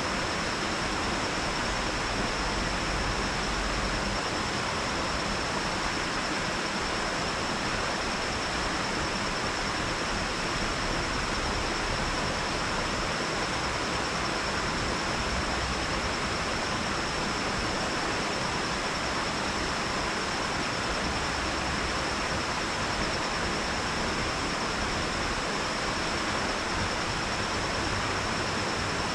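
Water pouring over a lake dam into the creek below: a steady rushing, with a thin steady high tone above it.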